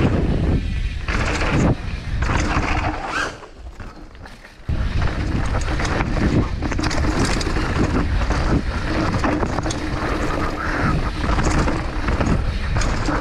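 NS Fuzz 29 downhill mountain bike riding fast down a dirt trail: knobby tyres on dirt and stones, the bike rattling over roots, and wind rumbling on the handlebar-mounted camera. The noise drops off for about a second near four seconds in, then picks up again.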